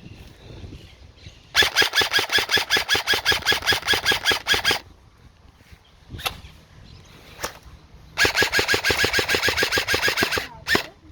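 Airsoft rifle firing on full auto: two long bursts of about three seconds each, roughly eight shots a second, with a few single shots between and at the end.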